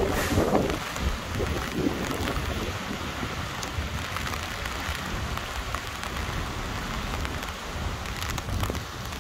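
Heavy rain falling steadily: a dense, even hiss with scattered sharp ticks of individual drops striking nearby surfaces.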